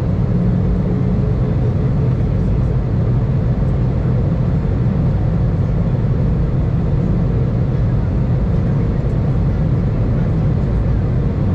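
Steady cabin noise inside an Airbus A320 on approach: a loud, low rumble of engines and rushing air.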